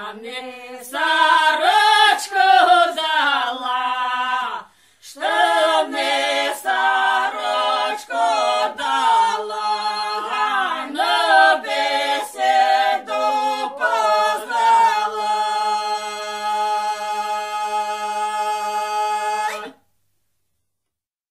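A small group of Polissian village women singing a Ukrainian folk song a cappella in harmony, in the traditional open-voiced style. The final line ends on a long held chord that stops suddenly near the end.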